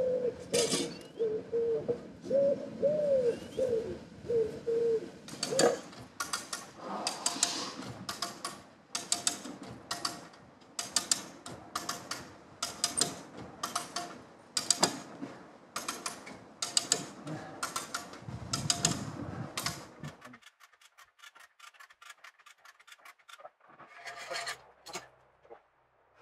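A ratchet strap being cranked, its ratchet clicking in a steady run of strokes, about one and a half a second, to winch the hull along. At the start a dove coos a few times.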